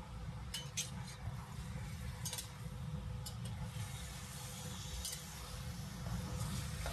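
Metal ladle stirring and scraping chicken pieces around a big iron wok as they stir-fry, with a light sizzle and a few short clinks over a steady low hum.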